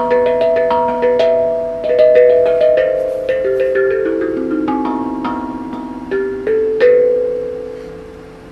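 A tuned, struck percussion instrument played as a melody: single notes that ring on and overlap one another. The last note is struck about seven seconds in and left to fade.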